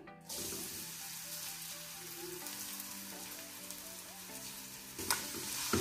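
Finely chopped garlic sizzling as it hits hot oil in a pan, a steady frying hiss that grows louder about five seconds in.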